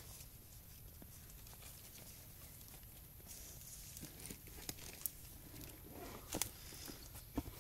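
Hands scraping and scooping loose, dry soil out of a small hole: faint crumbly scratching, with a few short sharp clicks and knocks in the second half. The loudest clicks come about six and a half and seven and a half seconds in.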